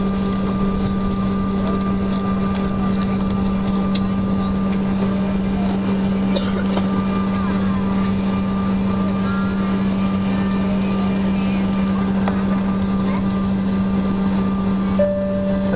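Steady cabin drone of a CRJ200 regional jet taxiing, its twin rear-mounted General Electric CF34 turbofans at taxi power, with a strong steady low hum under it. A brief tone sounds near the end.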